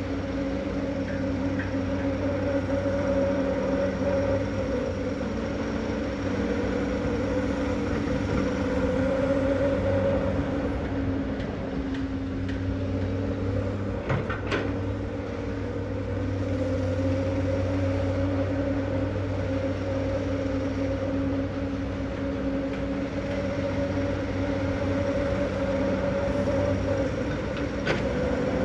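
Komatsu 210LC excavator's diesel engine running steadily under working load, its note swelling and easing slightly as it works, with a few brief knocks about halfway through and again near the end.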